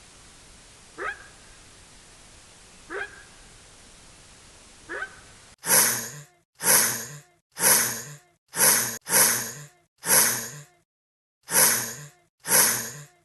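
Animal sounds from two different animals. First come four short calls about two seconds apart, each rising quickly in pitch, over a steady hiss. About five and a half seconds in, a different animal gives eight loud, breathy blasts, each under a second long and fading quickly.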